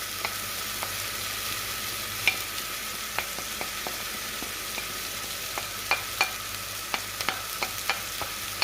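Chopped red onions browning in olive oil in a pot, sizzling steadily, with irregular sharp clicks and pops scattered through.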